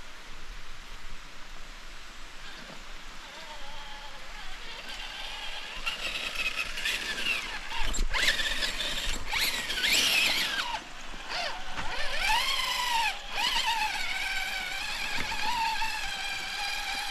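Whine of an RC rock crawler's electric motor and gears climbing, its pitch rising and falling with the throttle and louder from about halfway through. A single knock comes about halfway through.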